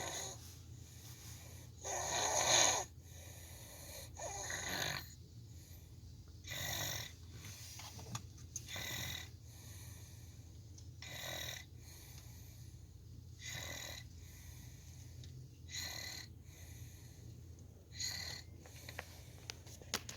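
A sleeping girl snoring, one snore about every two and a half seconds, the one about two seconds in the loudest, over a steady low hum.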